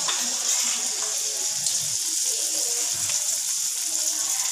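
Batter frying in hot oil in a wok: a steady, even sizzle.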